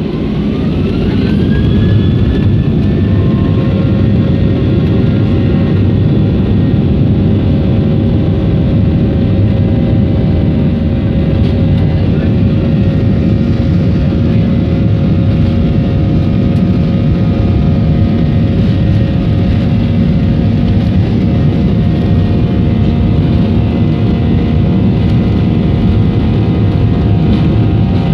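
Boeing 737-500's CFM56-3 turbofan engines heard from inside the cabin, spooling up to take-off thrust with a rising whine over the first couple of seconds, then running steadily loud over a deep rumble through the take-off roll.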